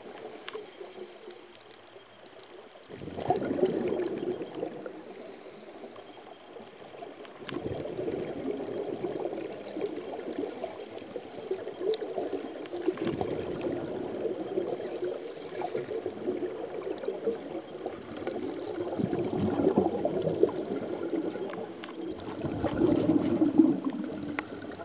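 Scuba exhaust bubbles bubbling and rushing from a diver's regulator underwater, swelling and fading in repeated surges a few seconds apart with each breath.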